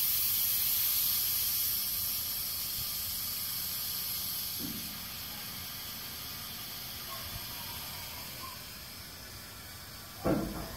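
A steady high hiss, a little louder in the first two seconds, with a faint knock midway and a sharp thump near the end.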